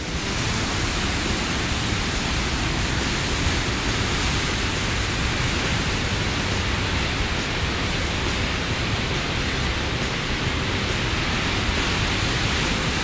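Rushing of churning white water: a loud, steady, even roar of turbulent water that starts abruptly and holds without change.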